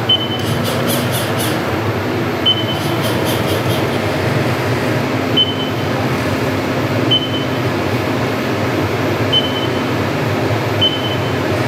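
Steady running hum of a three-axis CNC milling machine as a touch probe feels its way round the corner of an aluminium plate, with six short high beeps spread through it, each marking the probe touching the workpiece.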